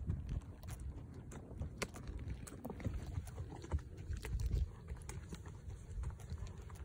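A horse walking over dry, stony dirt: soft, irregular hoof thuds with scattered small clicks and crunches, under a low, uneven rumble on the microphone.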